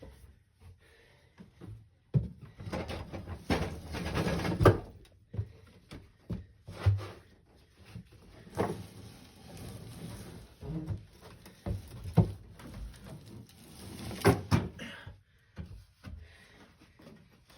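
Irregular clunks, knocks and scraping as a three-wheeler ATC with a locked-up front brake is wrestled and shoved by hand. There is a dense stretch of scraping and banging early on, then single sharp clunks every few seconds.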